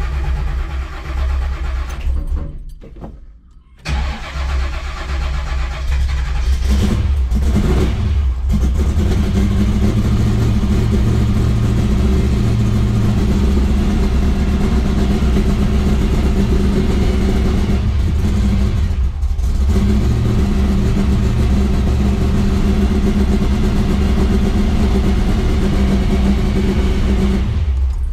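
A 383 stroker small-block Chevy V8 on a Mighty Demon 750 double-pumper carburetor, started for the first time after the float bowls and accelerator pump were primed by hand. It cranks and fires, falters a couple of seconds in, then catches again about four seconds in. After a few rough seconds it settles into a steady, loud run.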